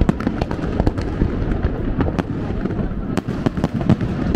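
Fireworks going off: a dense, irregular run of sharp bangs and crackles, several a second, over a continuous low din.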